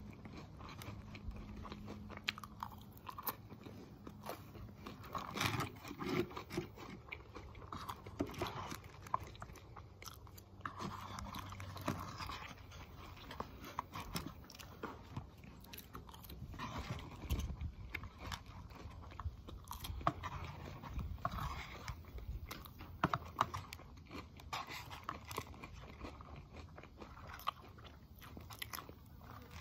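A person chewing and biting crunchy food right at the microphone, with frequent irregular crunches.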